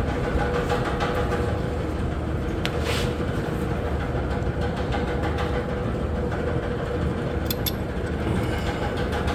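A steady mechanical drone with a constant mid-pitched hum, from machinery running in the background. A few light clicks come about seven and a half seconds in, as hands handle parts at the strut's bracket.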